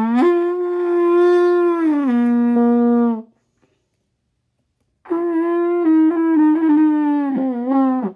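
Trumpet played in two phrases. First a long held note that steps down to a lower note about two seconds in, then after a pause a second phrase with a wavering pitch that dips down near the end.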